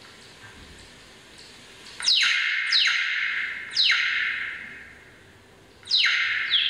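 Slowed-down bat-detector recording played over loudspeakers: faint rapid ticking of Bechstein's bat echolocation calls, then, about two seconds in, five loud synthesized social calls from a Sussex Autobat lure. Each call is a sharp falling sweep with a fading tail.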